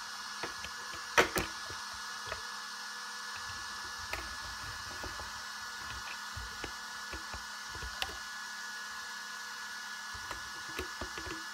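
Cooling fans on a powered-up brushless RC car running with a faint steady whine and hum. A few sharp clicks and taps come through, the loudest a quick pair about a second in.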